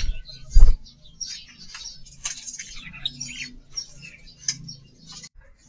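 Budgerigars and other small aviary birds chirping and chattering in many short high calls, with a heavy thump about half a second in.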